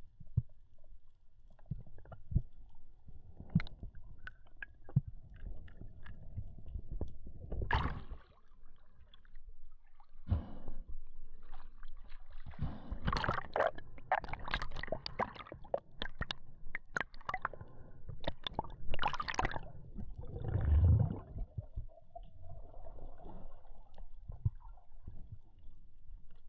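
Water sound recorded underwater: irregular sloshing and gurgling as the water moves around the camera, with scattered sharp clicks and knocks.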